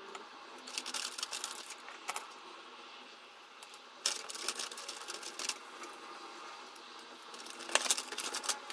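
Metal binder clips clinking and clicking as they are handled and clamped onto a stack of leather wallet pieces, in three short clusters of rapid clicks.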